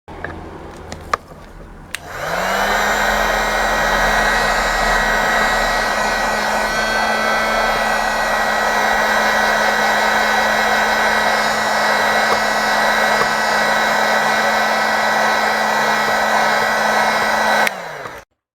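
Handheld hot-air blower heating a phone so its digitizer can be taken off. It is switched on about two seconds in, its motor hum rising as it spins up, runs steadily with a loud rush of air, then is switched off near the end and winds down. A few light handling clicks come before it starts.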